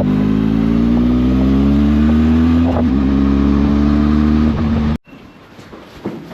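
Motorcycle engine breathing through a newly fitted cheap aftermarket exhaust, revving up as the bike accelerates, with a brief dip at a gear change about three seconds in before it rises again. The rider finds this exhaust lacks bass. The engine sound cuts off abruptly about five seconds in, leaving much quieter background sound.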